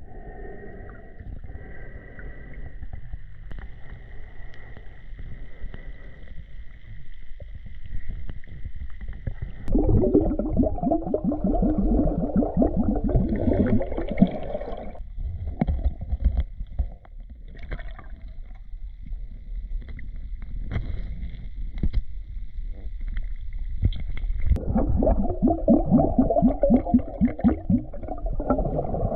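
Muffled stream water heard through a camera held underwater, with two spells of rapid bubbling gurgles a few seconds each, about a third of the way in and again near the end. A faint steady high whine runs through the first third.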